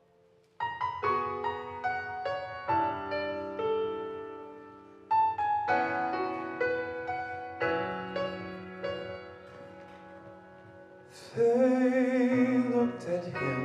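Piano playing a slow, gentle introduction of rolling chords, thinning out about ten seconds in. About eleven seconds in, a man starts singing over it, loudly, holding a note with wide vibrato.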